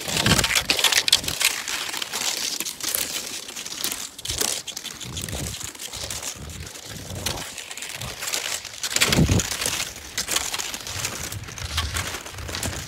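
Cross-country skis crunching and swishing over wet, granular thawing snow, a continuous crackly hiss that swells and fades with each stride. A few low thumps break in now and then, the loudest about nine seconds in.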